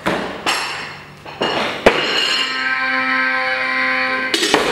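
Loaded Olympic barbell knocking and clinking as the lifter catches and stands up with it, followed by a steady buzzer tone lasting about two seconds, the referees' down signal for the lift, and a clatter near the end as the bar is lowered to the platform.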